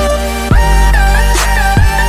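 Background music: a pop/R&B-style track with a heavy bass, a sliding melody and a steady beat.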